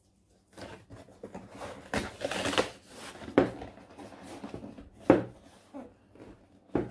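A cardboard box being opened by hand: irregular scrapes, taps and rustles of cardboard as the lid is prised open, with louder knocks about two, three and a half and five seconds in.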